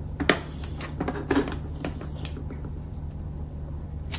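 A few light clicks and knocks of plastic toy pieces being handled, mostly in the first half, over a steady low hum.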